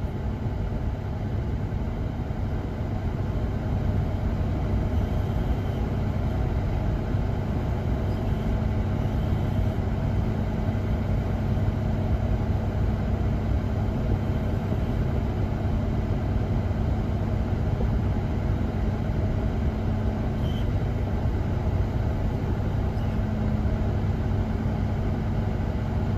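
Kubota KX040-4 mini excavator's diesel engine running steadily, heard from the operator's seat, as the hydraulics work the arm and bucket to scoop and dump soil.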